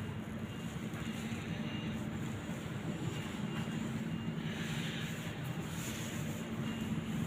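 Steady low rumble with a hum under it.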